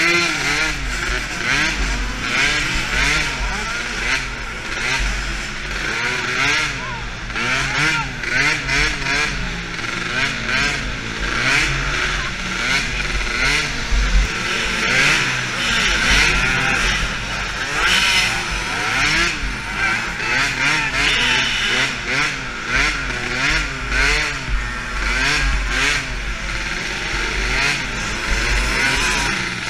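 Small engine of a DRR 50 youth quad revving up and down over and over as it races around a dirt track, its pitch rising and falling every second or so.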